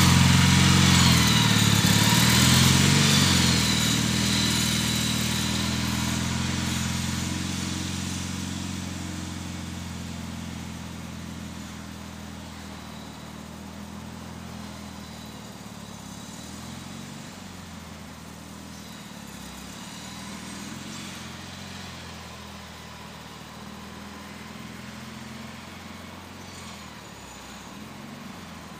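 Gravely tractor's engine running while plowing snow. It fades over the first ten seconds as the machine moves away, then runs faint and steady.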